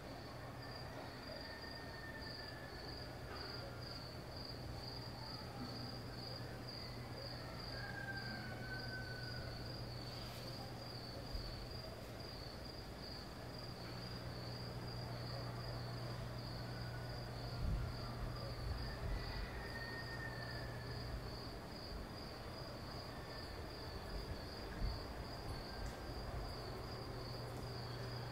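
Cicadas singing in a steady, rapidly pulsing high buzz, with a low steady hum beneath.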